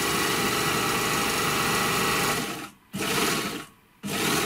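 Three-thread Gemsy 1D overlock sewing at speed on a test piece. It stops about two and a half seconds in, then runs again in two short bursts.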